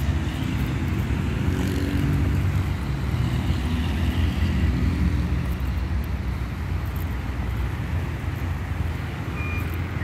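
Road traffic: cars and trucks passing on a nearby road, a steady low rumble.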